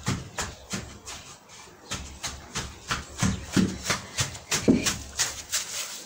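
Background song with a steady percussive beat, about three sharp hits a second.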